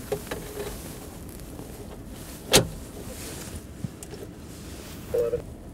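Flashlight being handled in its mount beside the seat: a few light clicks and one sharp knock about two and a half seconds in.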